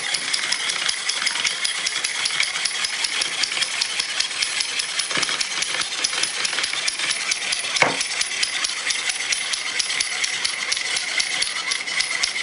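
Fast, steady rattling clicks, bright and high, with a dull knock about five seconds in and a louder one near eight seconds.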